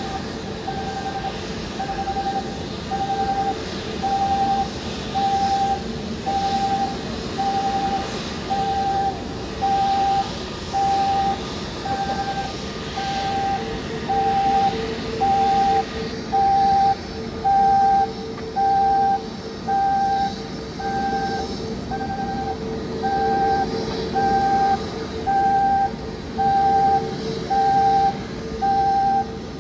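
Airport ground-equipment warning beeper sounding a steady, evenly spaced beep about once a second, each beep about half a second long, over a steady mechanical hum.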